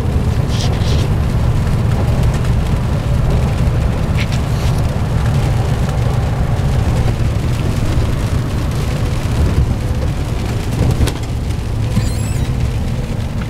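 Loud, steady low rumble of a vehicle driving on a rain-wet road, heard from inside the cab: engine and tyre noise with rain. A short knock sounds near the end.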